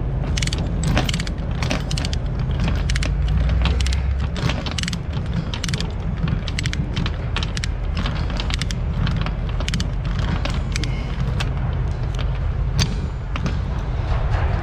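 Ratchet chain binder being cranked tight on a flatbed load chain: many irregular metallic clicks and chain rattles, over a steady low rumble.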